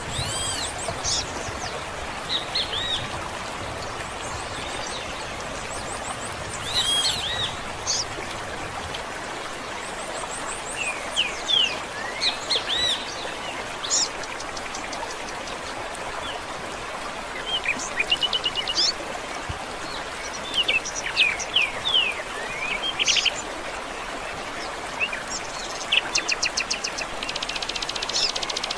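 Several songbirds chirping and calling, with short arching notes and quick trills, over the steady rush of a stream.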